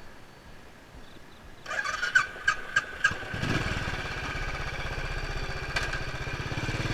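A few clicks, then a motorcycle engine starting about three seconds in and running steadily at idle.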